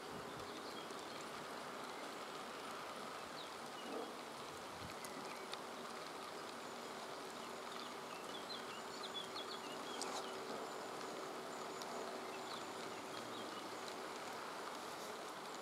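Meadow ambience: a steady insect buzz that starts about five seconds in, a few faint bird chirps, and an even hiss beneath.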